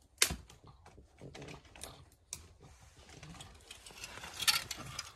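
Footsteps crunching through dry leaves and twigs, a sharp crackle about every half second, with a denser crunch about four and a half seconds in.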